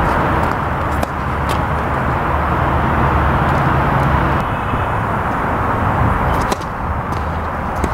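Steady outdoor rumble of road traffic, with a few sharp ticks on top; about six and a half seconds in, a crisp strike of a racket on a tennis ball as a serve is hit.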